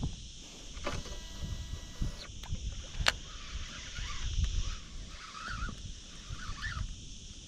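Baitcasting reel spool whirring with a steady even tone for about a second after a swimbait cast, followed by a sharp click about three seconds in. Wind and handling rumble on the microphone underneath.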